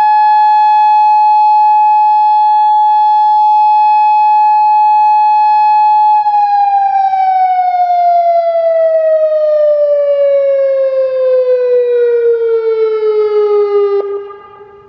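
Federal Signal Modulator II 3012B electronic outdoor warning siren sounding its loud steady alert tone at one pitch. About six seconds in, the pitch glides smoothly down over roughly eight seconds as the siren winds down. Near the end the tone cuts off sharply, leaving a faint lingering tone.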